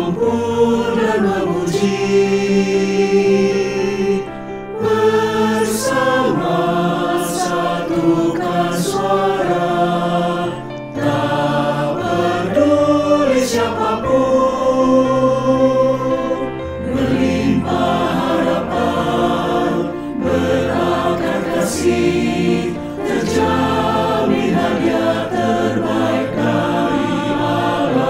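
Mixed choir of men's and women's voices singing a hymn in parts with piano accompaniment. The phrases have short breaths between them.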